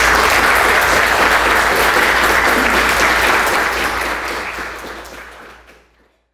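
A small audience applauding, the clapping fading out near the end.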